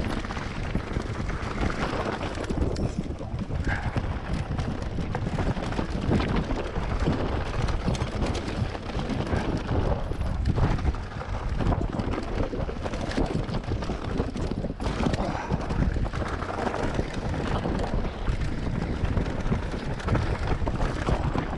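Mountain bike riding over a rocky trail: tyres crunching on loose stones and the bike rattling with many small knocks, under a steady rumble of wind on the microphone.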